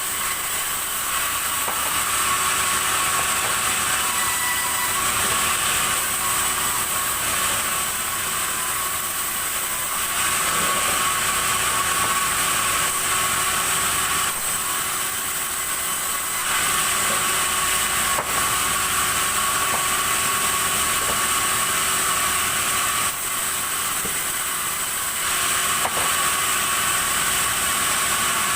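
Sawmill saw running steadily while sawing red hardwood into boards, with a steady high whine throughout. It grows louder for a few seconds about ten seconds in and again about twenty-three seconds in.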